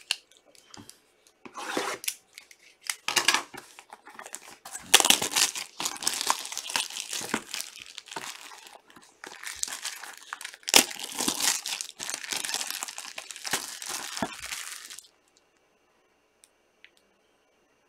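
Clear plastic shrink wrap being slit, torn and crumpled off a sealed trading card box: crackling, rustling bursts that stop suddenly near the end.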